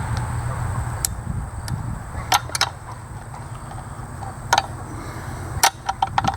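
Sharp metallic clinks of a wrench on the nuts and metal of a Homelite 350 chainsaw's clutch cover, a scattering of short clicks, several in quick pairs, over a steady low rumble.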